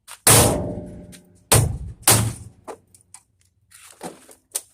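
Three hard hammer blows on a discarded television; the first rings on for about a second, the next two follow close together, then a few lighter knocks.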